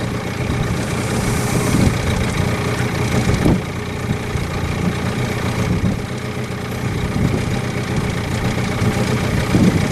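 Boat's outboard motor running steadily at slow trolling speed, a continuous low hum.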